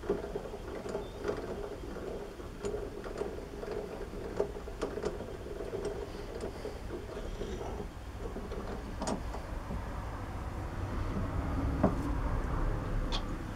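Small metal lathe running, its motor and gears whirring steadily while a drill is run into a change gear's bore, with scattered light clicks and ticks.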